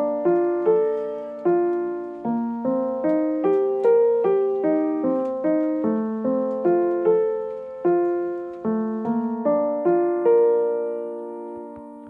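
Background music: a gentle piano melody of single struck notes, each fading away, ending on a longer fading note near the end.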